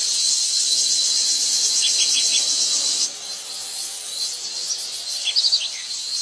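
Steady shrill chorus of insects that drops in level about three seconds in, with a few short bird chirps twice over it.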